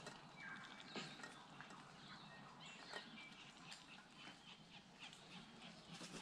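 Faint tui calls: scattered clicks and short, high whistled notes over a quiet outdoor background.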